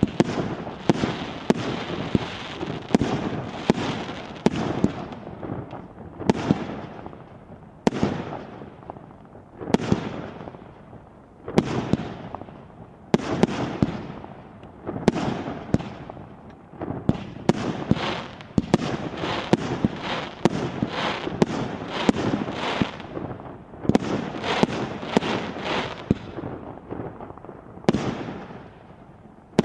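Fireworks going off shot after shot, each a sharp bang followed by a fading tail. They come in quick volleys at first, slow to single shots a second or two apart for a while, then speed up again into rapid volleys.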